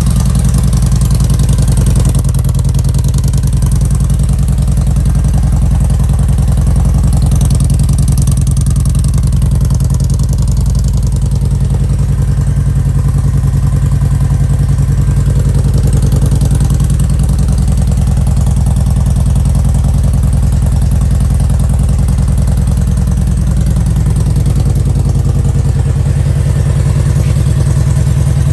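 Kawasaki Vulcan Voyager 1700's V-twin engine idling steadily through freshly fitted Sharkroad 4-inch slip-on mufflers, a loud, deep, even exhaust note.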